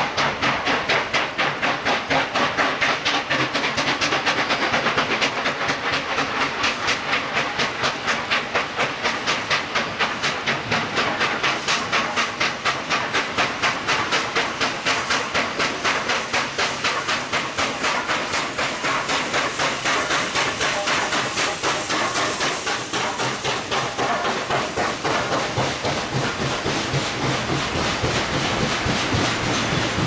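Steam locomotive passing close with a train of passenger cars, a fast, even rhythm of beats over a steady hiss.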